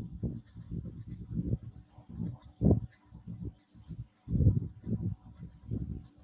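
A marker writing on a whiteboard, giving irregular low knocks and rubs stroke by stroke. Behind it runs a steady high-pitched cricket trill.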